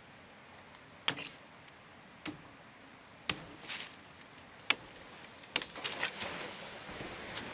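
Sharp knocks, irregularly spaced about a second apart, with a quick run of several about six seconds in.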